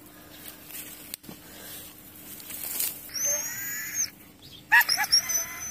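An injured dog whining in high-pitched drawn-out cries, with a quick run of short yelps near the end.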